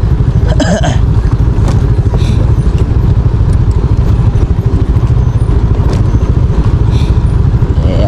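Motor scooter running while ridden over a rough, rutted dirt trail: a steady low rumble of engine and wind on the microphone, with a few small knocks from the bumps.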